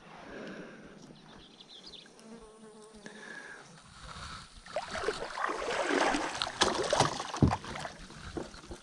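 An insect, a fly by its buzz, drones briefly near the microphone, then there is a louder irregular run of splashing and knocks from wading in shallow river water beside a plastic kayak, loudest in the second half.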